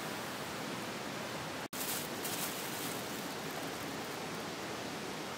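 Steady rushing of flowing stream water, an even hiss with no distinct events. The sound cuts out for an instant a little under two seconds in.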